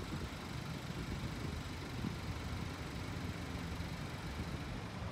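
A vehicle engine running with a low, steady rumble.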